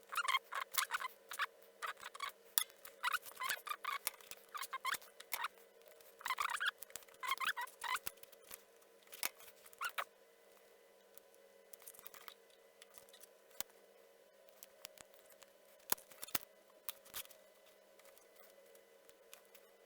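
Small clicks and scratchy rustling of hand tools handling tiny electronic components and their wire leads, typical of cutters and pliers trimming and bending parts. The handling is busy for about the first eight seconds, then only occasional single clicks.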